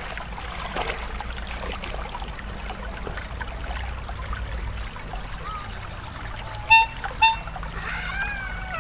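Shallow river water flowing and splashing around a child paddling an inflatable float with her hands. Near the end come two short, loud honks about half a second apart.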